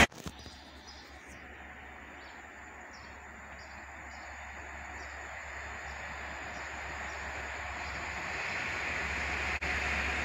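Distant Class 67 diesel locomotive with a test train approaching, its rumble growing steadily louder. Short high bird chirps repeat about twice a second through the first half.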